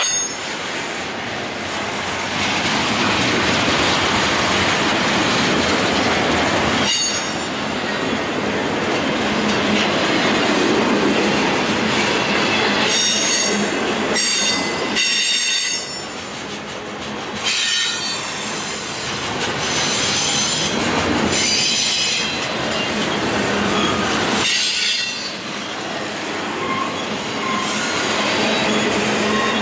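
Double-stack intermodal freight train rolling past: a steady rumble and clatter of steel wheels on rail, broken by several bursts of high-pitched wheel squeal.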